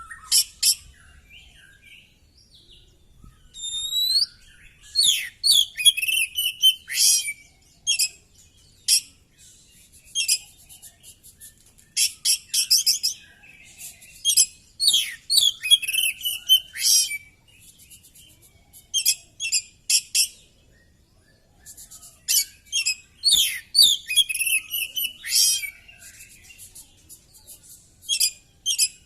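Oriental magpie-robin (kacer) singing phrases of rapid, high-pitched whistles and chattering notes, with short pauses between phrases.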